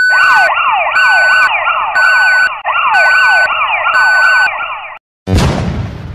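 Electronic siren-like sound effect: rapid, repeating downward sweeps with a steady beep sounding five times, on and off about once a second. It cuts off suddenly about five seconds in and is followed by a loud hit that fades away.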